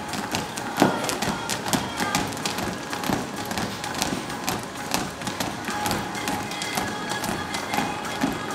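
Music, with many sharp taps and knocks over it.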